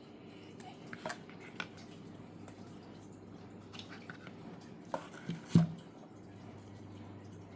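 Scattered light clicks and taps from handling a plastic charger and its packaging, with one louder knock about five and a half seconds in, over a low steady hum.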